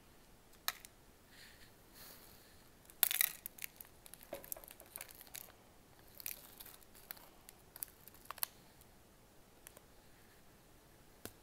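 A small candy packet crinkling in the hand as it is tipped and shaken out over a plastic tray, in short scattered rustles and clicks, loudest about three seconds in.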